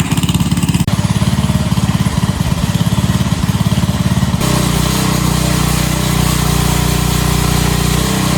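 Small gas engine of a pressure washer running with an even, rapid pulse. About four seconds in the sound changes abruptly to a steadier, fuller engine note.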